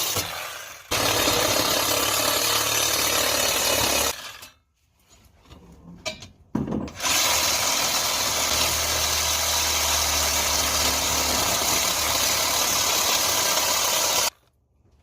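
A power tool cutting through a cast-iron drain stack, run in two long bursts: about three seconds, a short pause, then about seven seconds more. Each burst starts and stops abruptly.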